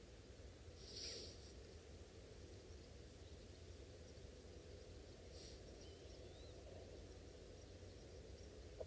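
Near silence: faint outdoor ambience with a steady low rumble, two brief soft hisses about a second in and midway, and a faint short rising whistle a little after.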